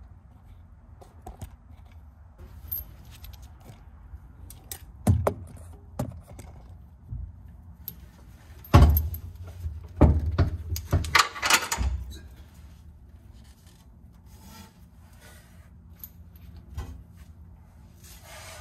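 Small metal parts clinking and knocking as a bolt is pushed through an axle mount and a washer and nut are fitted by hand, with scattered scraping and a cluster of louder knocks about nine to twelve seconds in.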